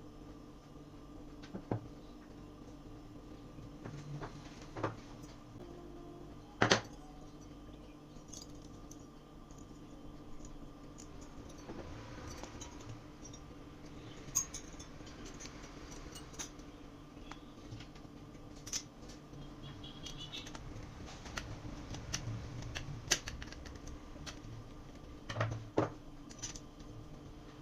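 Scattered clicks, taps and clinks of small hard objects being handled over a steady low hum, with the sharpest knocks about seven seconds in and near the end.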